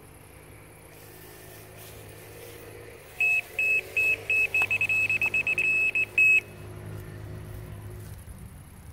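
Fox RX electronic carp bite alarm sounding a run: single high beeps about three times a second that quicken into a fast string of beeps for about three seconds, the sign of a fish taking line. A low steady rumble lies underneath.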